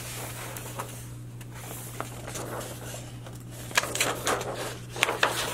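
Large paper poster rustling as it is handled, with a run of sharper crinkles and crackles from about four seconds in as the sheet is curled back, over a steady low hum.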